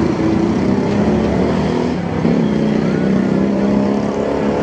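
A motorbike's small engine running steadily close by, amid street traffic, its tone shifting slightly about two seconds in.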